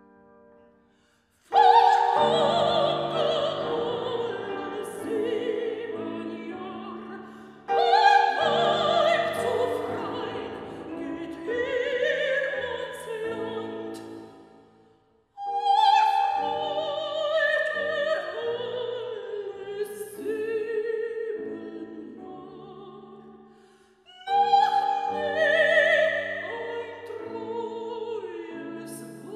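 Operatic soprano singing in German with piano accompaniment, in four phrases that each begin loudly after a brief pause, the first about a second and a half in.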